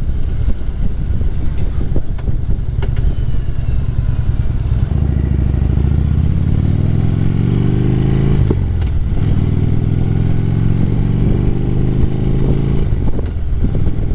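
Harley-Davidson V-twin motorcycle engine under way, heard from the rider's position. It pulls steadily at first, then accelerates with rising pitch, breaks off briefly for an upshift a bit past halfway, climbs again, and shifts once more near the end.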